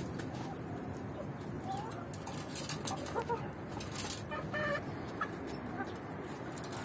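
A flock of Swedish Flower chickens clucking softly, with scattered short calls and one longer call about halfway through, plus a few sharp clicks, over a steady low background noise.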